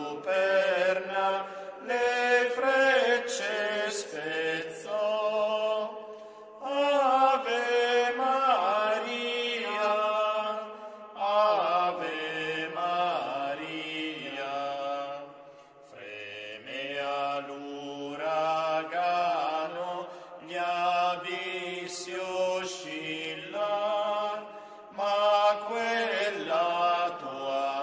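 Slow devotional chant sung by voices with a wavering pitch, in phrases broken by short pauses every few seconds, over held low notes.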